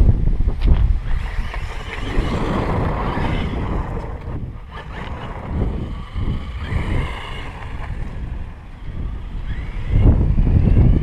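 Wind buffeting the microphone, loudest near the end, over the electric motor whine of a REMO SMAX 1/16-scale RC truck driving; the whine rises and falls with throttle, rising in pitch shortly before the end.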